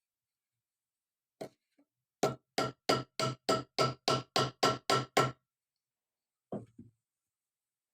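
Hammer blows setting a metal jeans rivet: one blow, then a quick run of about eleven even blows, roughly three a second, each with a short ring, and two softer knocks near the end.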